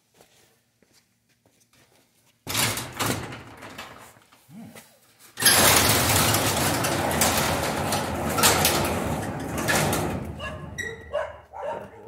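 Overhead garage door going up: the noise starts suddenly about two and a half seconds in, grows louder and steady about five seconds in, and dies away after about ten seconds. A dog barks a few times near the end.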